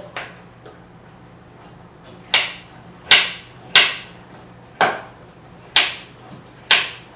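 A cup of powdered homemade soap being tapped down on the counter to settle it: about seven sharp knocks at uneven intervals.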